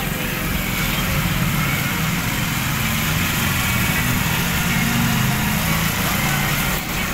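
Small motorcycle engine running steadily while riding, with wind and road noise.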